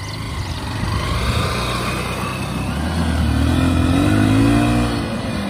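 Honda CB Shine's 125 cc single-cylinder engine pulling under load as the motorcycle climbs a steep sandy mound, ridden up without hard revving. The engine note grows louder and its pitch swells about three to four seconds in, then eases off near the end.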